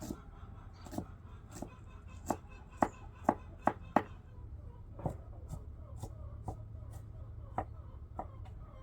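A knife chopping on a cutting board: about fifteen sharp strokes at an uneven pace of roughly two a second, closest together around the middle, over a low steady hum.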